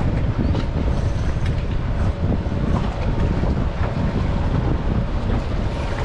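Wind buffeting the microphone on an open boat at sea: a steady low rumbling rush, with a faint steady hum underneath.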